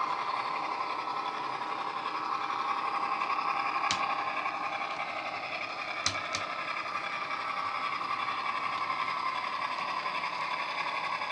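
Dapol Class 68 model diesel's DCC sound decoder playing JMC's Class 68 engine sound through a pair of small megabass speakers: a steady engine drone under power as the model runs. Sharp clicks come about four seconds in and twice about six seconds in.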